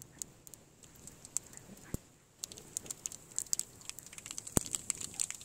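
Mustard seeds crackling and popping in hot oil in a kadai, the tempering stage when the oil is hot enough. Scattered sharp pops at first, then from about halfway they come quicker and thicker as the seeds start to splutter.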